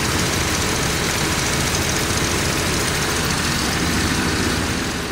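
Car engine idling steadily in the open engine bay after an ignition timing check, with its advance found to be working.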